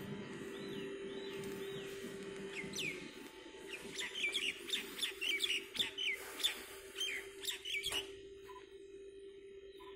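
Small birds chirping in quick, curving high notes, sparse at first and then a dense run from about four to eight seconds in, over a steady low hum.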